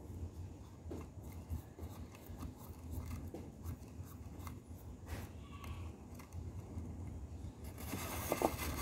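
Light scratching and tapping of a paintbrush on a plastic toy figure, with small handling clicks, and a louder rustle near the end.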